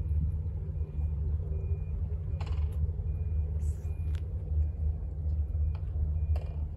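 Steady low wind rumble on the microphone, with a brief hiss about three and a half seconds in and a couple of faint clicks near the end.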